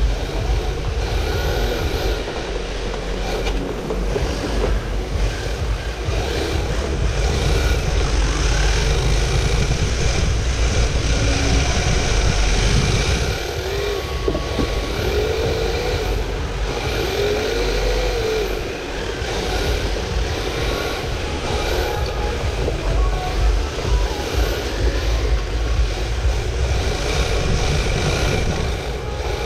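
RC drift car's electric motor and gear drive whirring and rattling as the car drives, heard from a camera mounted on the car, with the tyres sliding on a tiled floor and the mount picking up a heavy rumble. A few short rising-and-falling squeaks come about halfway through.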